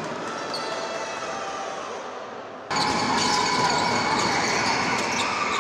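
Basketball arena ambience: a small crowd and court noise. The sound jumps abruptly louder at an edit cut a little over halfway through.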